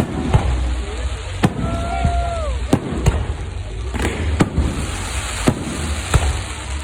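Fireworks display going off close by: about ten sharp bangs at irregular intervals over a steady background of noise. A short whistle-like tone drops in pitch as it ends, about two seconds in.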